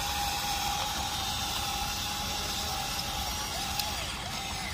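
Electric motors of a Huina RC excavator whining steadily as the toy swings and moves on its tracks. The pitch dips and bends a few times near the end as the load on the motors changes.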